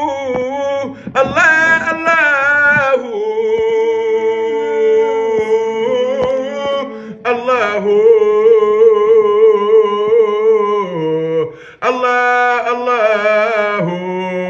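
Zikr devotional chanting: a male voice sings long, drawn-out melodic phrases with a wavering, ornamented pitch. Each note is held for several seconds, with brief breaths between phrases.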